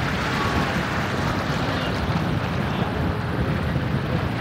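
Wind buffeting the microphone, a steady low rumble, over the wash of small waves breaking around rocks at the shoreline.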